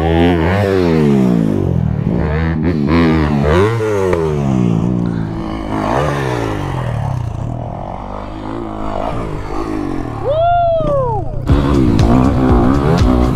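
Dirt bike engines revving up and down, the pitch repeatedly sweeping up and falling away, with a brief rising-then-falling tone about ten seconds in. About a second and a half before the end, a Honda CRF250RX's single-cylinder four-stroke engine comes in close and loud under throttle.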